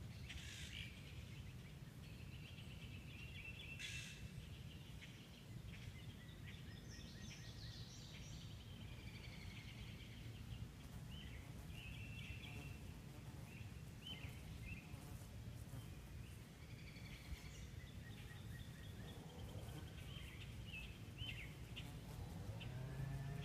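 Songbirds chirping and trilling in short, varied phrases over a steady low background rumble.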